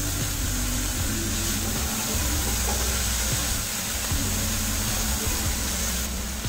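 Chopped centella (gotu kola) leaves frying in hot oil in a steel wok, a steady sizzling hiss, with a steel spoon stirring them.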